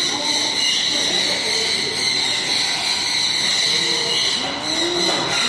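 A striped owl gives soft hoots over a steady high-pitched whine; the clearest hoot rises and falls near the end.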